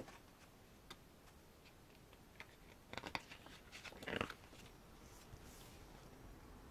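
Paper handling as a photo book's pages are turned: faint scattered clicks and rustles, with a brief swish of a page turning just after four seconds in, the loudest sound.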